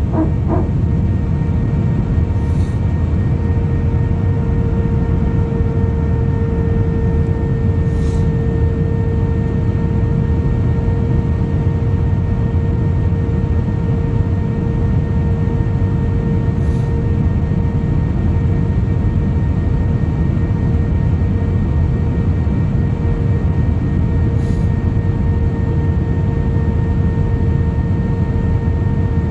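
Cabin noise in an Airbus A319-132 on approach to land: a steady roar of airflow and its IAE V2500 turbofan engines, with a steady hum tone over it. A few faint ticks come through now and then.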